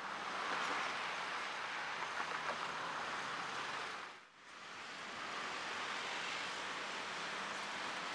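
City road traffic: a steady wash of passing cars and motorbikes. It dips briefly about four seconds in and then carries on as before.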